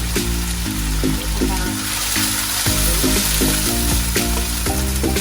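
Ground spice paste, with turmeric just added, sizzling steadily in hot oil as it is sautéed until fragrant.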